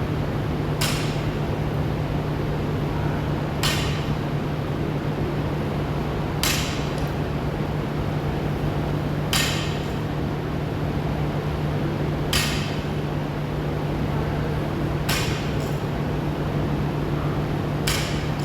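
Sharp metallic clinks of gym equipment, one with each workout rep, about every three seconds, over a steady low hum.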